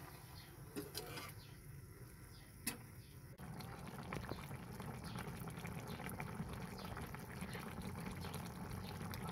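Chop suey broth of cabbage, carrot and pork bubbling at a simmer in a wok, a steady crackling bubble that starts about three seconds in. Before it, a few sharp clicks of the metal ladle against the wok.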